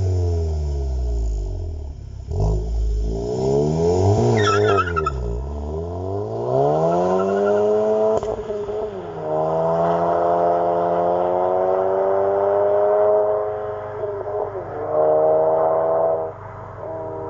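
Volkswagen Golf GTI Performance's turbocharged 2.0-litre four-cylinder, fitted with an Ulter Sport Premium sport exhaust, accelerating away hard through its manual gearbox. The engine note climbs and drops about three times at the upshifts, then fades as the car draws off.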